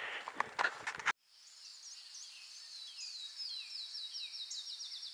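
A few footsteps for about a second, then an abrupt cut to a bird singing a series of short falling whistles that speed up into a trill, over a steady high-pitched hiss.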